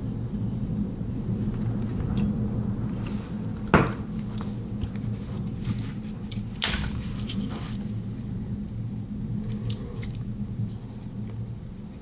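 Metal clicks and snaps from handling a Victorinox Farmer X Alox Swiss Army knife, its tools being moved: two sharp snaps, about four seconds in and again nearly three seconds later, with a few lighter ticks, over a steady low hum.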